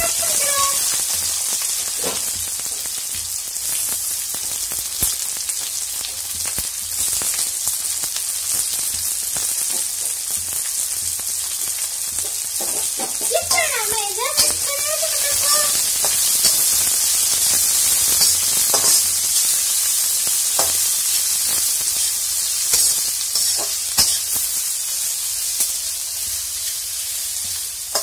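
Sliced onions and chopped garlic sizzling in hot oil in a kadai, stirred with a metal spatula that now and then scrapes and taps against the pan.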